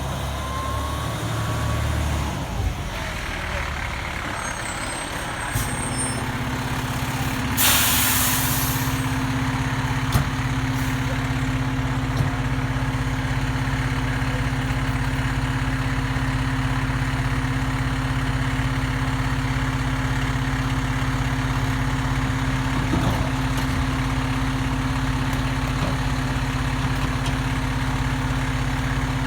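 Heavy truck's diesel engine settling into a steady idle about five seconds in, with one short, loud hiss of air brakes about seven and a half seconds in.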